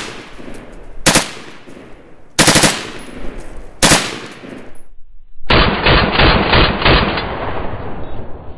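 Beretta BM-59 select-fire 7.62×51 mm rifle firing on full auto: short bursts of a few rounds, a little over a second apart, then after a brief pause a longer, faster string of about seven rounds.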